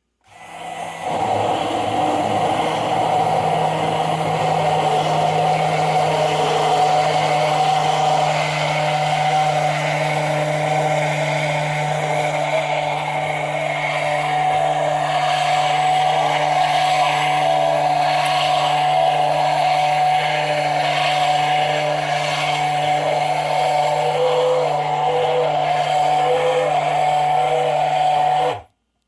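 Immersion blender motor running steadily for nearly half a minute as it emulsifies aquafaba and oil into mayonnaise, starting just after the beginning and cutting off suddenly near the end.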